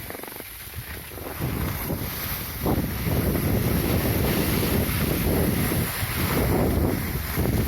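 Wind buffeting the microphone. It builds about a second and a half in and gets louder from about three seconds on.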